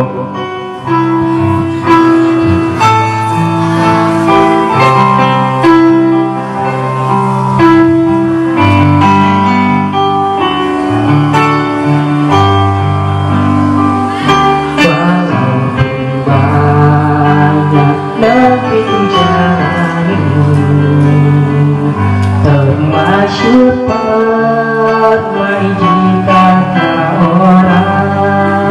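Instrumental accompaniment with a steady beat and held chords, with a young man singing over it into a microphone. The voice comes in more clearly from about halfway through.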